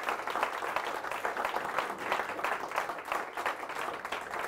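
A small audience applauding, many hands clapping steadily at the end of a talk.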